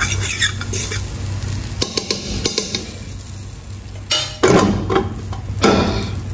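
A spoon stirring and scraping curry powder in hot oil in a metal pot, with light clinks. Near the end come two louder knocks and scrapes as the pot is shifted on the gas stove's grate.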